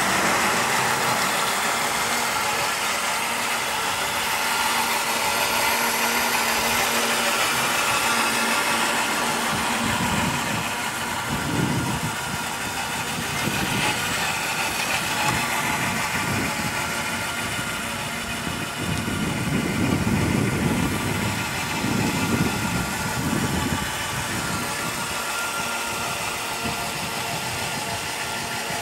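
1:8 scale radio-controlled MB trac 1800 intercooler model tractor driving, a steady mechanical running sound made of several held tones. Irregular low rumbles swell in and out in the middle of the stretch.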